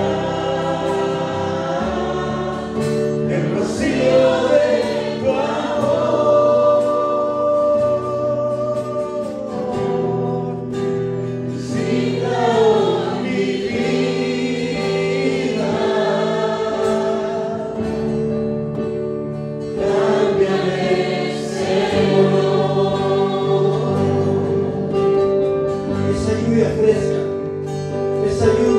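Choir singing a Christian worship song over sustained instrumental backing.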